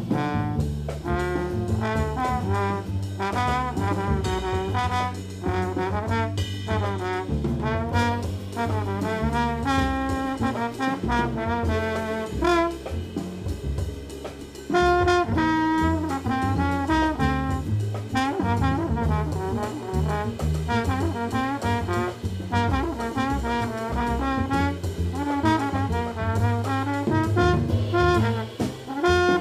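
Jazz quartet playing live: a trombone carries the melody over bass and drum kit. The band drops in loudness about two-thirds of the way through, then comes back in louder.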